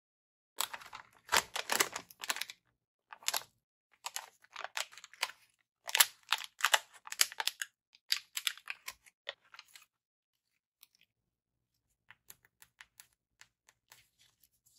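Packaging being handled during an unboxing: rustling and crackling in irregular bursts, then only a few faint clicks for the last few seconds.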